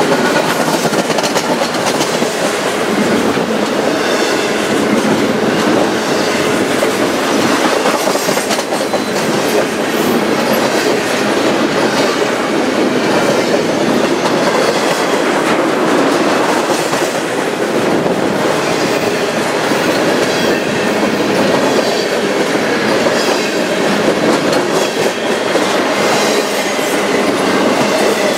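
Double-stack intermodal freight cars rolling past at close range: a steady, loud rumble with the clickety-clack of wheels over rail joints.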